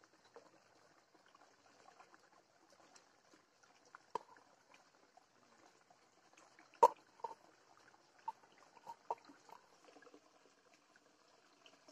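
Food being served by hand: cooked rice tipped from a steel bowl onto a banana leaf, then thick fish curry poured over it from a metal pot. A few short sharp knocks, the loudest about seven seconds in.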